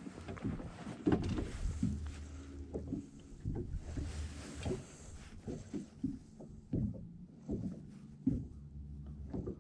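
Small waves slapping against a fibreglass boat hull in uneven low knocks, over a steady low hum.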